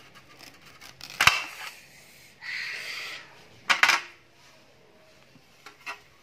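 A watermelon being cut open on a steel tray: two sharp metallic knocks, with a crisp rasp of about a second between them as the cut top comes away from the flesh, and two light taps near the end.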